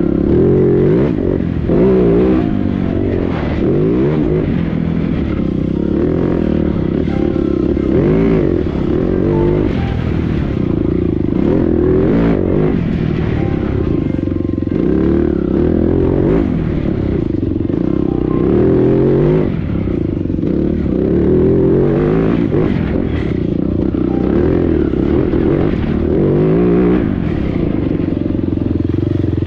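A TM Racing EN 300 Fi fuel-injected four-stroke single-cylinder enduro bike's engine, ridden hard on a dirt track, its pitch rising and falling every second or two as the rider twists and rolls off the throttle.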